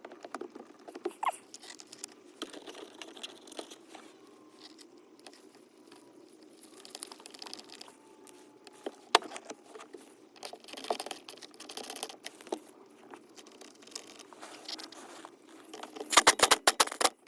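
Scattered light clicks, knocks and rustling as a steering wheel is handled and fitted back onto the steering column, with one sharper knock about halfway through and a rapid run of loud clicks near the end.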